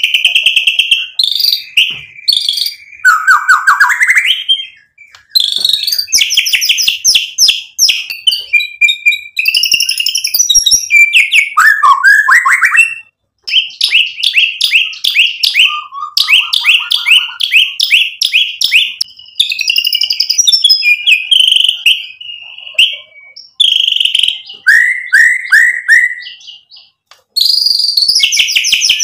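Male white-rumped shama singing loudly: a long, varied song of rapid trills, rattling chatter and whistled phrases, packed with mimicked material, broken by short pauses about 5, 13 and 27 seconds in.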